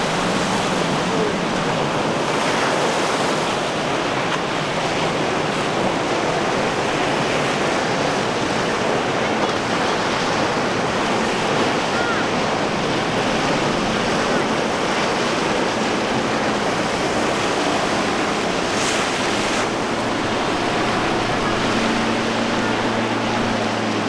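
Waves and surf with wind rushing on the microphone, over the faint steady hum of a small Yamaha outboard motor. The engine hum grows a little stronger near the end.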